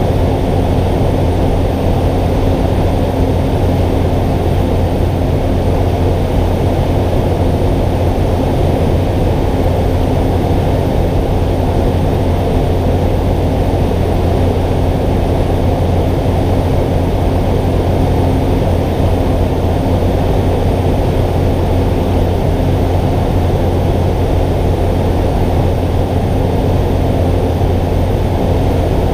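Cessna 208 Caravan's Pratt & Whitney PT6A turboprop and propeller droning steadily in flight, heard from inside the cockpit: a strong low hum with a steady higher tone over it.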